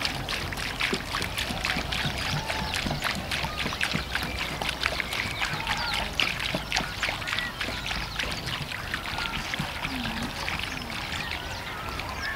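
Water glugging and splashing as it pours from a tipped 20-litre plastic container into a pool of water on a sand-and-cement mix.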